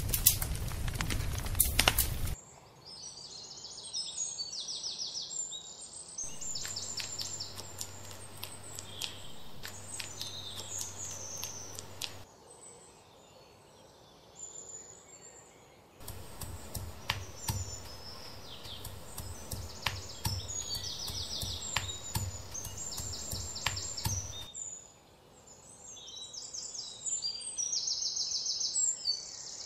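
Wood fire crackling for the first two seconds, then songbirds chirping and trilling. Through the middle come two runs of quick, repeated knocks of a pestle pounding in a stone mortar, each lasting several seconds.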